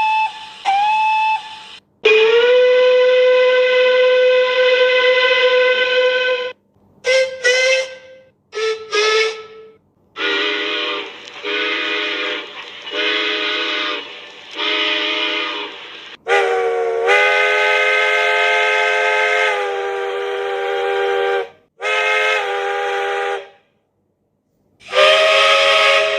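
Steam locomotive whistles, one after another. First come two short blasts, then a long whistle that slides up into its note. Quick toots follow, then four blasts and a long blast of a multi-note chime whistle that bends up at its start, and finally short chime blasts.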